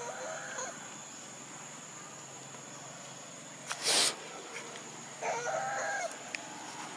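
A rooster crowing twice, once at the start and again about five seconds in, each crow under a second long, over a steady high insect drone. A brief, loud rush of noise comes about four seconds in.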